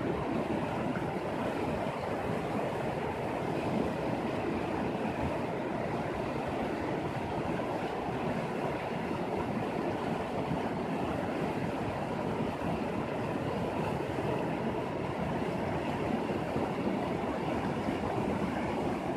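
Shallow, rocky mountain river rushing over stones: a steady, even rush of water.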